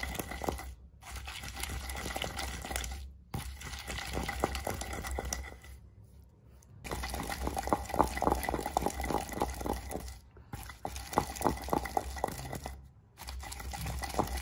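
A pestle grinding a thick, wet paste of almonds, spices and milk in a mortar: runs of quick, wet rubbing strokes with short pauses between them. The paste is still thick, with only a little milk added, as in the early part of the grinding.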